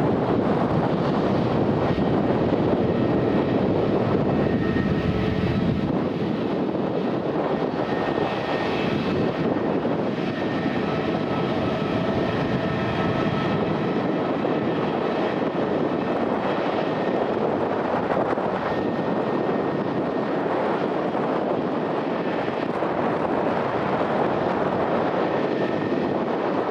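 Airbus A320neo's jet engines at takeoff power: a loud, steady rushing noise with faint high whining tones, the deepest rumble thinning out about six seconds in.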